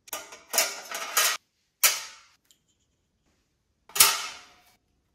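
Metal mesh insert and wire double-layer tray being fitted into the Philips Airfryer XXL's basket: a rattling clatter in the first second and a half, then two sharp metal clanks, each ringing briefly, about two seconds apart.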